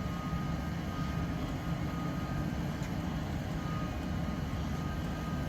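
Bridgeport EZ Trak CNC knee mill running under power on its new Centroid control: a steady low hum with a thin high whine that comes and goes in stretches of a second or so, typical of the axis servo motors moving.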